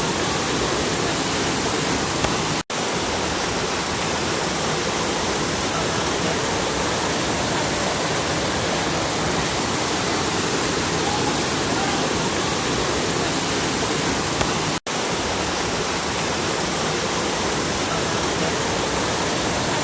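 Heavy tropical downpour: a dense, steady hiss of pouring rain and running water, cut off for an instant twice, about three seconds in and about fifteen seconds in.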